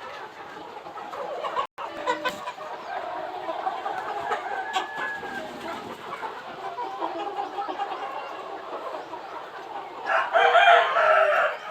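A flock of Aseel chickens clucking steadily, with one loud rooster crow about ten seconds in, lasting about a second and a half.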